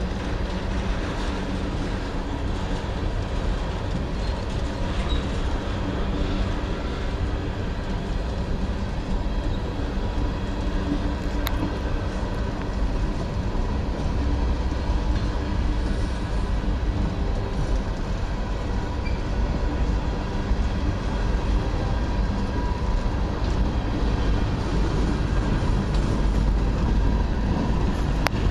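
Norfolk Southern freight train rolling past, a steady rumble of cars on the rails.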